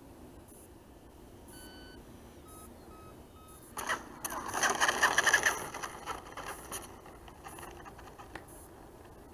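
Freewing F-86 Sabre RC electric ducted-fan jet touching down on the asphalt runway about four seconds in, then rolling out with a loud rattling rush from its wheels and fan that fades over about three seconds. A few faint short beeps come shortly before the touchdown.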